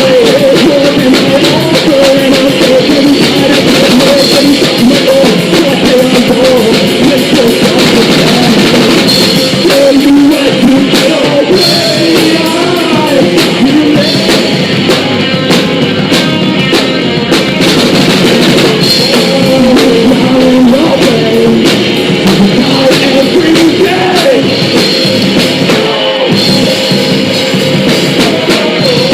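Punk rock band playing live, loud and continuous: electric guitars, bass and drum kit, with singing.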